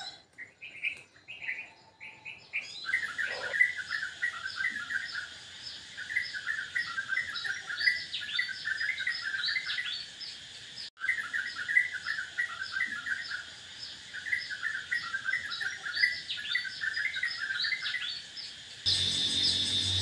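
Small birds chirping in quick, repeated runs of chatter, broken off briefly about halfway through. Background music comes in near the end.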